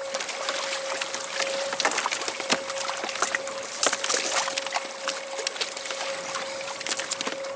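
Sea water sloshing and splashing against an inflatable kayak's hull, with short knocks and splashes as a small mackerel is lifted from the water and handled, over a steady whine.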